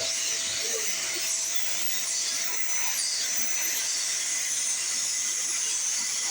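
Dyson Ball Animal 3 Extra vacuum cleaner running steadily, with its turbo tool on the hose: a strong high airflow hiss with a faint steady whine.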